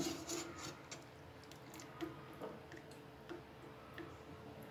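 Faint, scattered light clicks and taps of a steel slotted spoon against a steel pot as soft, water-soaked vadas are scooped out, over a faint steady hum.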